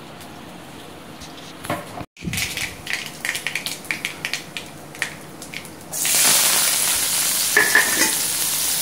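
Hot oil in a steel kadai crackling and popping as the tempering (mustard seeds, curry leaves) goes in. About six seconds in, chopped onions hit the oil and a louder, steady sizzle takes over.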